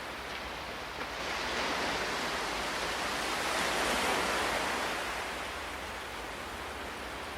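Ocean waves: a steady wash of surf with one wave swelling about a second in, loudest midway, then ebbing away.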